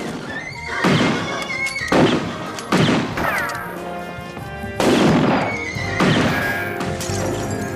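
Western-film gunfight: about five rifle and revolver shots, several followed by a short falling ricochet whine, over orchestral film music.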